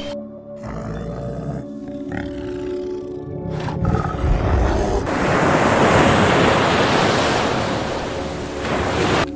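Background music with a brown bear's deep growl about four seconds in. This is followed by a loud, steady rushing noise that lasts until just before the end.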